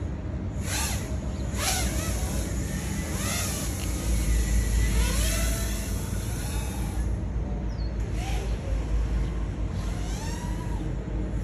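Small FPV racing drone's motors and propellers whining in repeated surges, the pitch rising and falling as the throttle is worked, over a low rumble.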